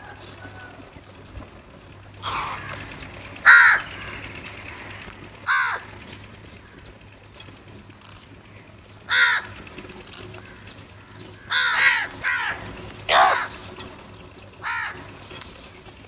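House crows cawing: about nine harsh caws at irregular intervals, coming in quicker succession in the second half.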